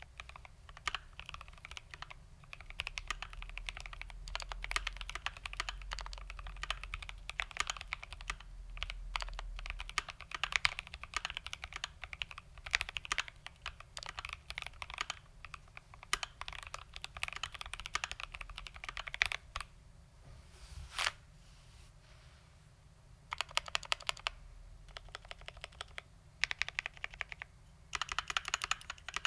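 GMMK Pro mechanical keyboard with lubed Tangerine linear switches, a polycarbonate plate and Cherry ABS doubleshot keycaps being typed on in a steady run of keystrokes. The typing stops about two-thirds of the way in, apart from one louder single stroke, then comes back in short bursts.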